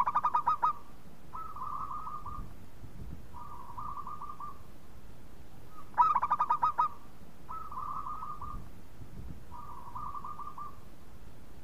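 Zebra dove (local perkutut) singing its cooing song twice, about six seconds apart. Each phrase opens with a quick, loud stutter of notes, then two softer rolling coos.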